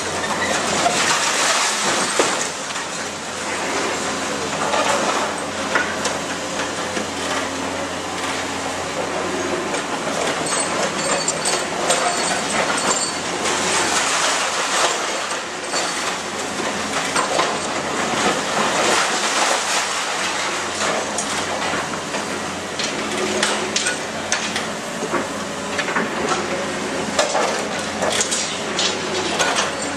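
Demolition excavator running while its hydraulic crusher jaws chew through a concrete building, with repeated cracking, crunching and clattering of falling rubble.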